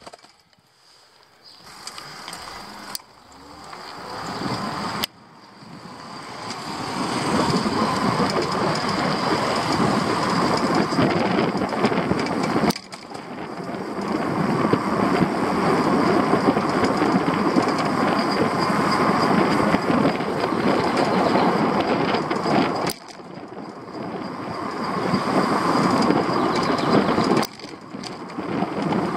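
Wind rushing over the microphone with road rumble from a downhill ride. It swells as speed builds and drops away abruptly several times.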